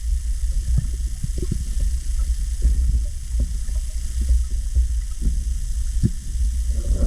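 Muffled underwater sound through an action camera's waterproof housing: a steady low rumble of water moving past the camera, with many soft, irregular pops and knocks.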